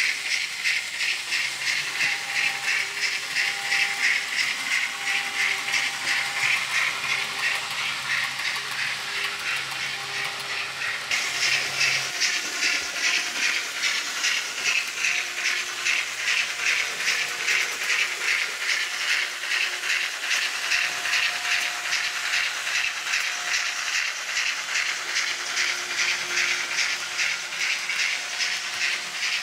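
Steam locomotive chuffing at a steady, even beat, each beat a hiss of exhaust steam.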